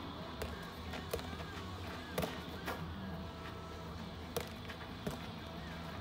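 Spikeball rally: about six sharp smacks at uneven intervals as hands strike the small rubber ball and it bounces off the round trampoline-style net.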